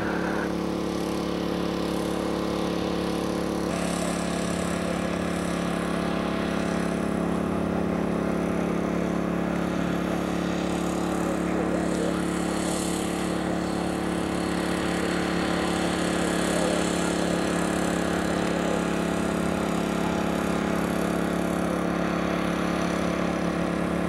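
Small engine running at a steady speed, a constant hum with a slight change in tone about four seconds in.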